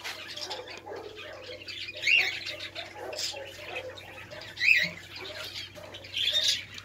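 Sparrows chirping: three louder chirps a couple of seconds apart among fainter calls, over a low steady hum.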